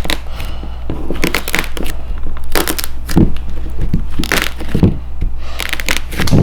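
Dried lightweight foam clay (iClay) shapes being crushed, giving repeated crackling crunches in short clusters.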